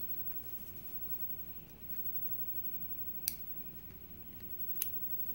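Two small, sharp clicks about a second and a half apart as the top pins and springs of a disassembled mortise lock cylinder are handled and set down.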